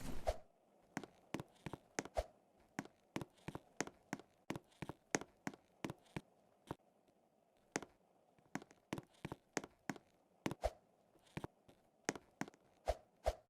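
A quick, irregular series of light taps or clicks, some with a short ring, over faint background hiss.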